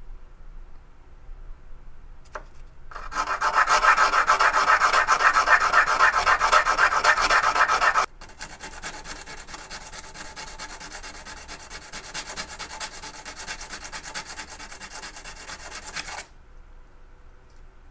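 Rapid back-and-forth hand sanding on an old screwdriver being restored. The strokes are loud for about five seconds, then lighter and steadier, and stop shortly before the end.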